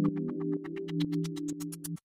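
Electronic background music: sustained synthesizer chords over a fast, steady ticking beat, which cuts off suddenly at the very end.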